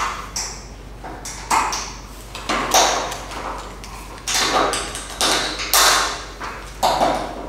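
Steel carabiners on rope-access lanyards clinking against overhead anchor eyes as they are unclipped and clipped, a series of sharp metallic clinks at irregular intervals, each with a short ring.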